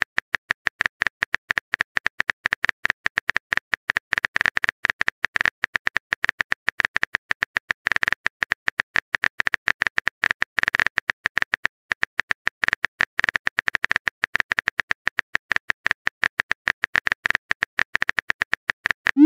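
Simulated phone-keyboard typing clicks from a texting app: rapid, irregular taps, several a second, as a message is typed. Right at the end a short rising swoosh marks the message being sent.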